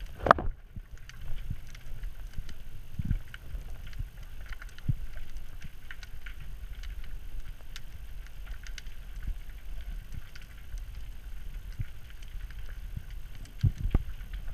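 Underwater sound through a GoPro housing: a steady muffled low rumble of moving water with scattered small clicks and crackles, and one sharp knock about a third of a second in.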